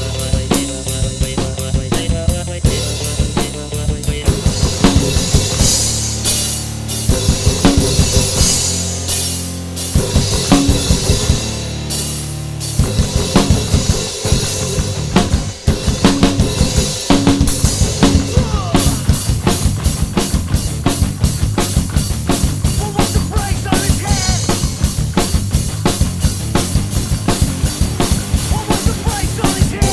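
Acoustic drum kit played with sticks along to a backing track: grooves and fills on snare, toms, bass drum and Zildjian cymbals, in a Trinity Grade 6 drum piece. The strokes grow denser and steadier from about two-thirds of the way in.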